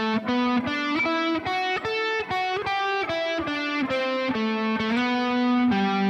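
Electric guitar playing a single-note pentatonic lick slowly, about three picked notes a second, moving between B minor, A minor and E minor pentatonic shapes with a few slides between positions.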